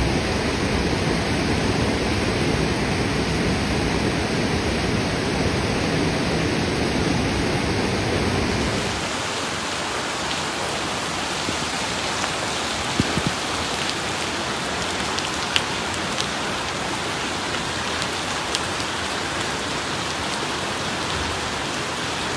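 Heavy rain falling steadily. For the first eight seconds or so a deeper rushing sound runs under it; after that the rain is a lighter hiss with single drops striking here and there.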